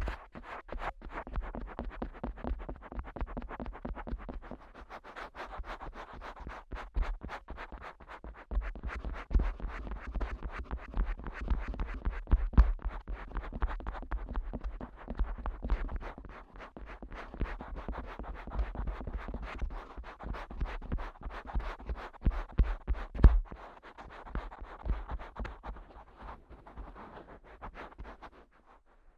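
Fingers rapidly tapping, flicking and rubbing on the ears of a Neumann KU100 dummy-head microphone: a dense run of close scratchy taps, with deep thumps that grow heavier from about 8 s in until near the end.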